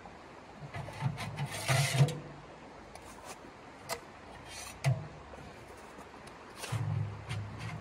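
Knocks, clatters and short scrapes of a small portable wood stove being handled at its front door, with a sharp click about four seconds in.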